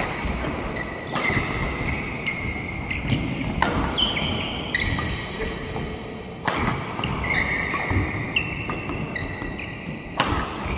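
Badminton rally: rackets striking a shuttlecock with sharp cracks at irregular intervals, and court shoes squeaking on the floor between shots.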